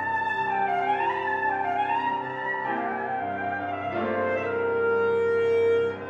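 Alto saxophone playing a wavering, winding melody over piano accompaniment. About four seconds in it settles onto one long held note, which ends just before the close.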